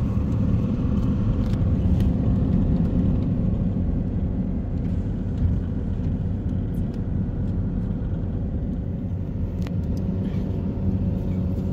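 Steady low rumble of a car's engine and road noise heard from inside the cabin as the car creeps through slow traffic on a wet street, with a few faint ticks.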